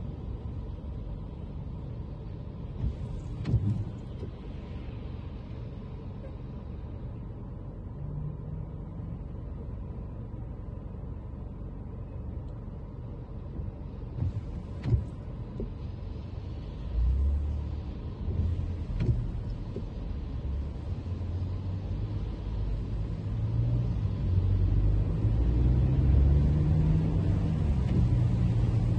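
Toyota Camry driving on wet city streets: steady low road rumble with a couple of sharp knocks and a few short hissing swishes, and the engine note growing louder and rising in pitch near the end as the car speeds up.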